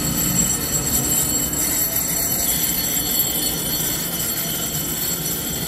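EMU3000 electric multiple unit standing at an underground station platform, giving a steady hum with thin, high, even tones over it.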